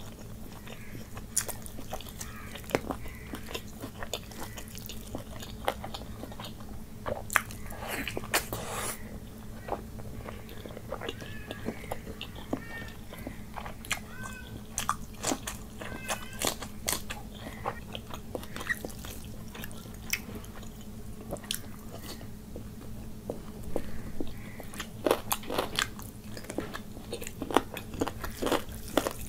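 Close-miked eating sounds: wet chewing, lip smacks and crunching bites as rice and curry are eaten by hand, scattered throughout in irregular clicks. A steady low hum runs underneath.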